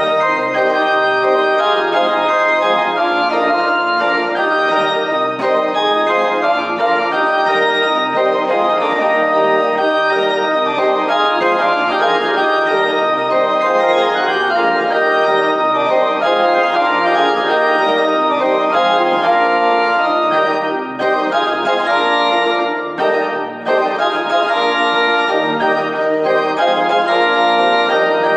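Church organ playing a hymn tune in sustained, full chords, with two brief breaks between phrases about two-thirds of the way through.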